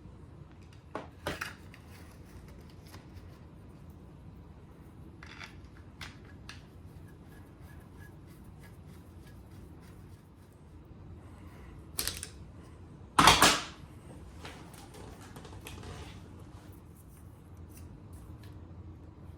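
Hand tools and metal engine parts clicking and clanking as they are handled: a few isolated knocks, the loudest about thirteen seconds in, over a low steady hum.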